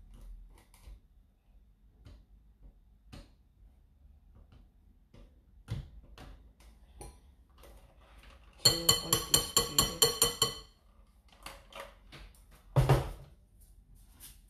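Metal beaters of an electric hand mixer knocked rapidly against a glass mixing bowl to shake off batter: about a dozen quick ringing clinks over two seconds, a little past halfway. Before them, faint scrapes and clicks of a spatula in the batter; one louder knock near the end.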